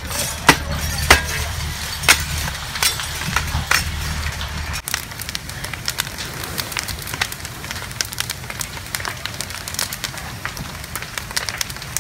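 A burning house crackling and popping, with sharp snaps of burning timber every fraction of a second. A steady low rumble runs under it and cuts off about five seconds in.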